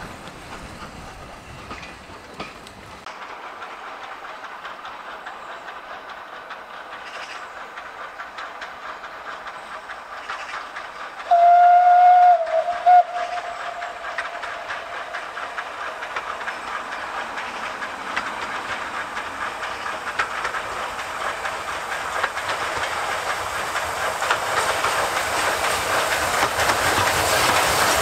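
Lancashire and Yorkshire 0-6-0 saddle tank steam locomotive's whistle, one steady note of about a second about eleven seconds in, followed by a short toot. The train's running noise, steam exhaust and wheel clatter, grows steadily louder as it approaches.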